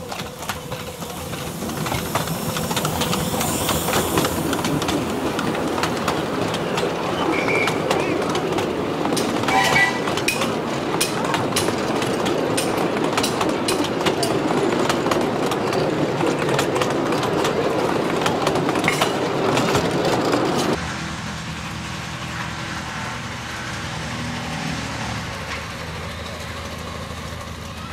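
Miniature steam train passing close by: a hiss of steam early on, then the carriages rolling past with quick clicks from wheels over the rail joints. About twenty seconds in it cuts suddenly to the quieter, steadier sound of the train running further away.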